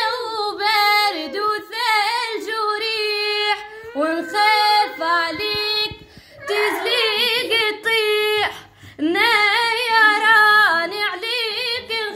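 A young girl singing solo with no accompaniment, her voice wavering through ornamented runs, with two short breaks between phrases near the middle.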